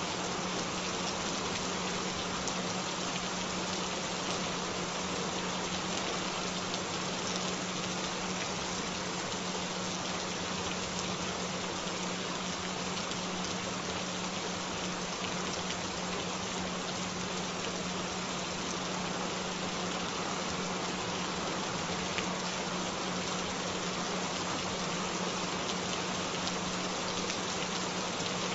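Steady rain falling, with a continuous low tone running underneath it: a frequency track made to be heard on headphones rather than in mono.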